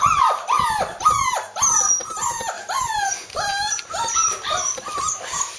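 Month-old Bernese mountain dog puppy yipping over and over, short high calls that each fall in pitch, two or three a second, growing fainter toward the end.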